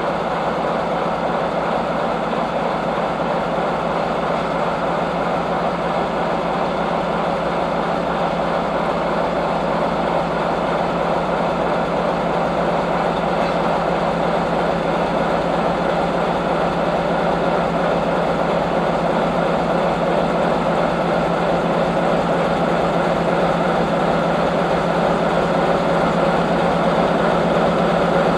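Heavy engine of an SM2 snow-removal train running steadily, with a constant low hum, slowly growing louder.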